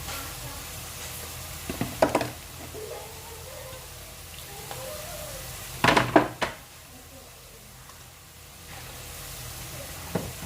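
Seafood stir-frying in a hot pan, sizzling steadily, with a spatula scraping and clanking against the pan in short bursts about two seconds in, around six seconds in, and near the end.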